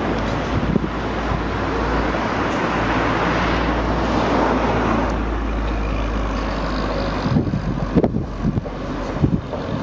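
Road traffic on a town street: a passing vehicle's noise swells to its loudest about halfway through and fades, over a steady low wind rumble on the microphone. A few sharp knocks near the end.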